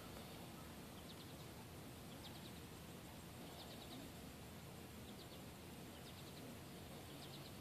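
Faint outdoor background hiss with a short high chirp, a few quick clicks each, heard about six times at irregular intervals of a second or so.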